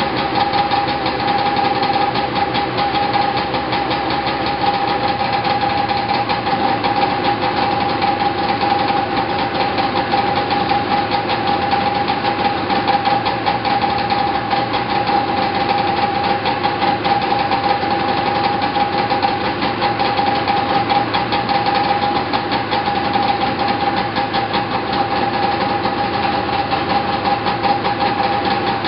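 Arctic Cat Jag snowmobile's two-stroke engine running steadily, warming up after a cold start, with a steady tone over its fast, even firing.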